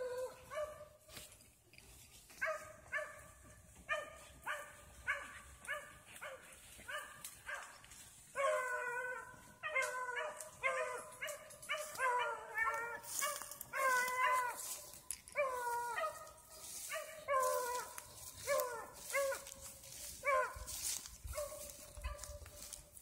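Dogs barking over and over in drawn-out, pitched barks, many falling in pitch at the end, about one or two a second and coming faster after the first third.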